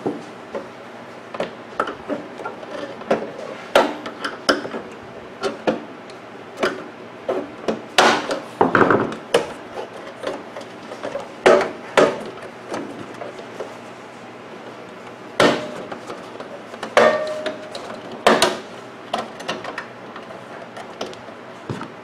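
Irregular plastic clicks, knocks and short scrapes from hands and a flathead screwdriver working on a microwave oven door, prying its plastic inner cover off its clips.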